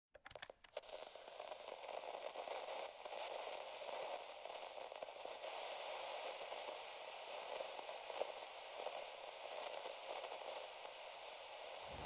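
Faint, steady crackling static hiss, with a few clicks in the first second.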